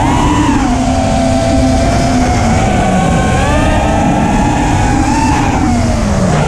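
FPV racing quadcopter's motors and propellers heard from its onboard camera: a loud, steady buzzing whine whose pitch wavers with the throttle, dipping about a third of the way in and again near the end.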